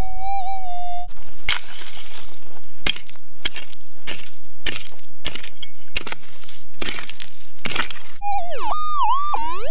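Minelab GPZ 7000 metal detector's steady threshold hum for about a second. Then about a dozen sharp scraping strikes, roughly two a second, as a target is dug out of stony ground. Near the end the detector's tone swoops up and down over the hole, a target signal the prospector hopes is a nugget.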